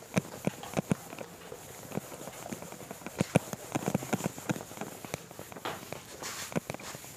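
A cloth being rubbed over a whiteboard to erase it, with many short, irregular knocks and taps against the board.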